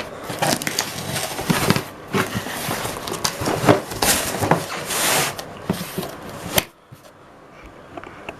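Cardboard box packaging being handled: a run of rustling with many sharp clicks and knocks that ends with a sharp click about two-thirds of the way through, then goes much quieter.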